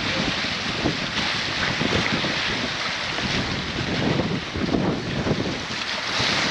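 Strong wind blowing across the microphone: a steady rushing noise with uneven low buffeting from the gusts.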